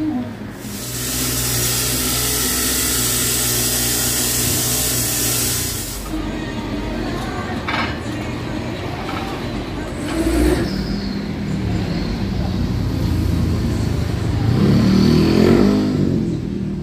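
Honda CRF150L single-cylinder four-stroke engine running through its exhaust, with a loud hiss for the first several seconds, then revved up and back down near the end.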